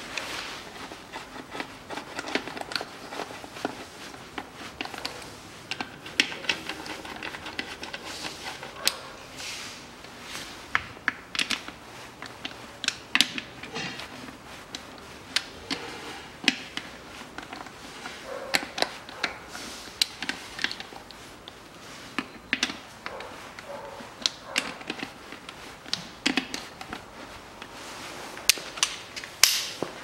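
Ratchet wrench clicking in short, quick runs while casing bolts on a manual gearbox housing are tightened down, with sharp metallic clicks all through.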